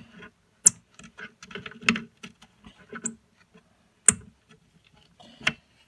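Irregular small clicks and knocks of hardware being handled, with a few sharper metallic clinks: machine screws with spring washers being fitted back into a speaker cabinet.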